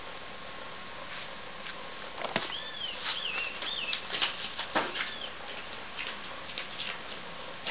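Irregular footsteps and knocks for about four seconds as a person walks past close by, two of the knocks heavier than the rest. A few short warbling chirps come in partway through.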